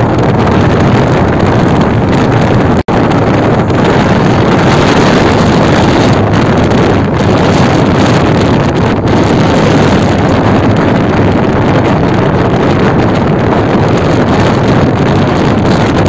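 Wind buffeting the microphone on the deck of a moving catamaran ferry, over the steady low drone of its engines and the rush of water past the hull. The sound cuts out for an instant about three seconds in.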